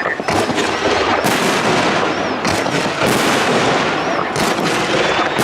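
Fireworks display: a continuous dense crackle with sharp bangs of bursting shells about once a second.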